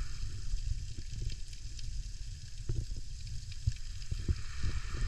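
Wind buffeting the microphone in an uneven low rumble, over a steady fizzing hiss of surf washing on the beach.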